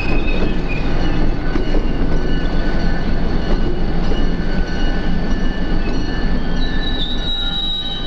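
A passenger train rolling past with a steady rumble of wheels on rail and several thin, high squeals from the wheels throughout.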